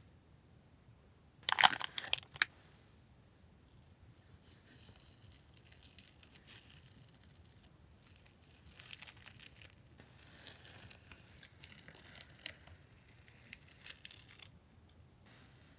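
Paper and plastic stationery packaging being handled and crinkled, with a short loud tearing crackle about a second and a half in, then softer rustling and scattered crinkles.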